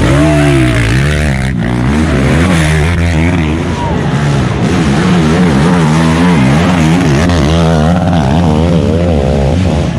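Race ATV engines revving hard at close range, the pitch swinging up and down again and again as the quads are throttled on and off, with a rising rev near the end.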